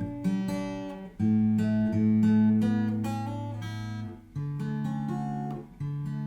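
Yamaha FG850 all-mahogany dreadnought acoustic guitar (solid mahogany top) playing sustained chords. The chords change about four times, each new chord ringing on until the next.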